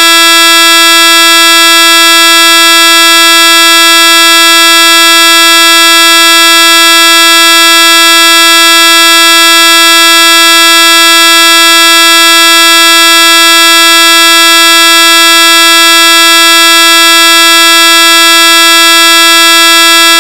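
Glitched, corrupted-audio electronic buzz of the kind heard on an anti-piracy screen: one harsh, very loud buzzing tone, held without change in pitch or level.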